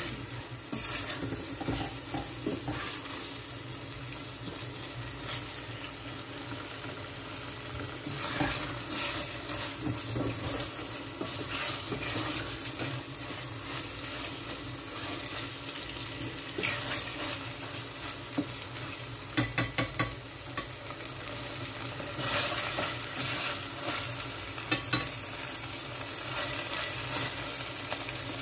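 Chicken pieces frying in curry paste in a stainless steel pot, sizzling steadily while a metal ladle stirs and scrapes through them; the paste is being fried until its oil separates. About two-thirds of the way through come four quick, sharp taps.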